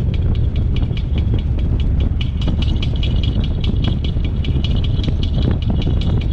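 Rapid, high-pitched squeaking, repeating several times a second over a heavy low rumble: the unlocated squeak/grinding noise of a 2014 Subaru WRX.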